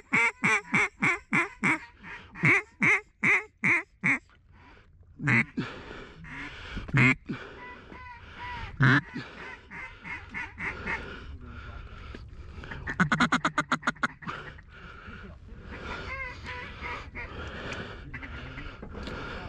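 Mallard duck call quacking: a loud run of about a dozen quacks fading over the first four seconds (a hail call), a few single quacks, then a fast chattering feed call about thirteen seconds in.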